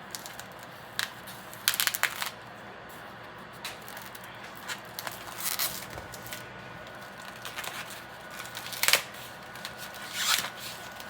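Scattered knocks, clicks and rustling of cookware and kitchen items being handled while a pot of water is set up on the stove, the loudest clatter about two seconds in and again near nine seconds.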